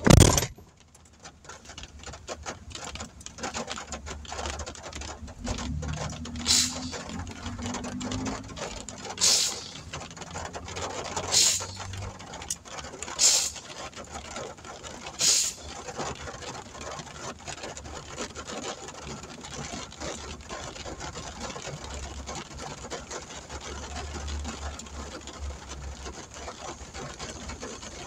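Heavy rain drumming on a truck cab's roof and windshield, heard from inside the cab as a dense patter of drops over a low steady hum. A click sounds right at the start, and five brief hissing swishes come about two seconds apart in the middle.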